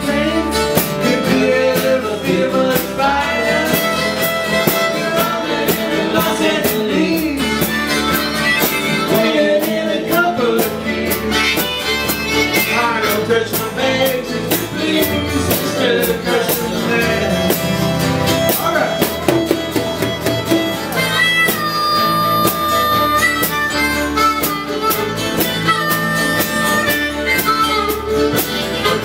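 Live acoustic band playing a country-blues song: strummed acoustic guitars, a harmonica and a man singing. Held high notes come in over the last third.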